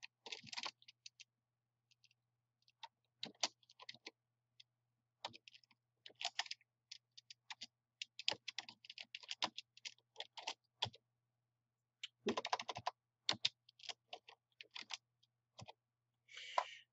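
Typing on a computer keyboard: irregular runs of quick keystrokes broken by short pauses, fairly faint.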